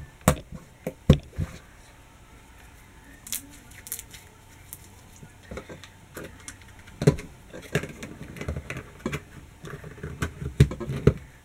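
Irregular sharp clicks and taps of a small clear plastic slime container being handled and set down on a tabletop, after the slime is gathered off the table. The taps come in a few clusters, thickest in the second half.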